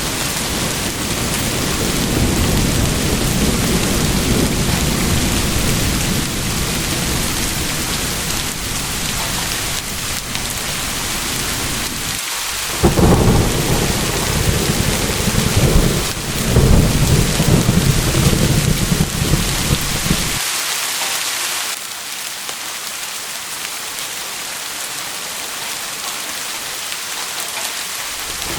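Steady heavy rain with thunder: a low rumble rolls under the rain, two louder cracks of thunder break in about 13 and 16 seconds in, then the thunder cuts off suddenly, leaving rain alone.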